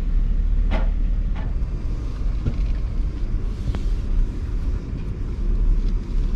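Vehicle rumble heard from inside a moving RV driving slowly over a rough lot road with speed bumps: a steady low drone with a few brief rattles.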